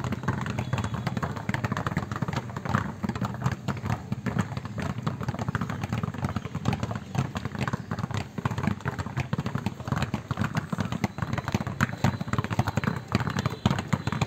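Many basketballs being dribbled at once on a tiled outdoor sport court: a dense, continuous run of overlapping bounces, with no gap between strikes.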